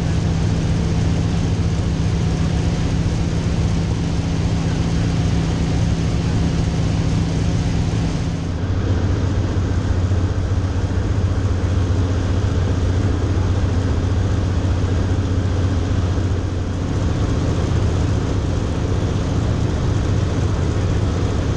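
DHC-2 Beaver's engine and propeller in cruise flight, heard as a loud, steady drone with a hiss of air over it. About eight and a half seconds in, the drone's low tone drops in pitch and then holds steady.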